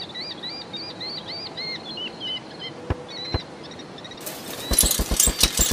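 Birds chirping in a quick series of short rising-and-falling calls, then two sharp clicks, and near the end a short burst of rapid clattering.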